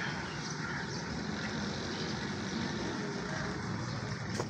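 Steady outdoor background noise, an even hiss and rumble with no distinct event, and a faint click near the end.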